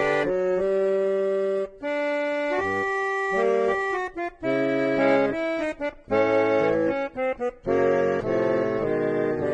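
Instrumental music of held chords, the notes changing every second or so, with several short breaks between phrases.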